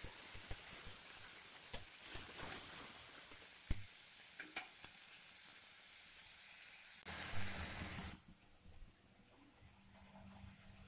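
Ginger-garlic paste sizzling in hot oil in a frying pan, with a few light spatula clicks. About seven seconds in, a louder hiss flares for about a second, then the sizzle drops away to quiet.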